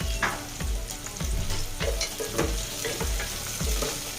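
Chopped onion and whole spices (cardamom, cinnamon, bay leaf) sizzling in hot oil in a pot. They are being stirred, with a spoon scraping and knocking against the pot about twice a second.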